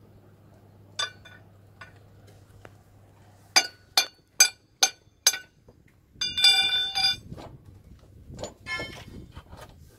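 A steel spanner clinking and ringing against steel parts of a heavy truck's underside: one sharp clink about a second in, then five quick ringing strikes, a longer metallic rattle and a few more clinks near the end. A low steady hum sits under the first third.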